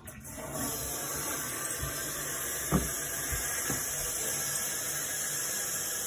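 Toilet tank refilling after a flush: a steady hiss of water running in through the fill valve, with one short knock about three seconds in.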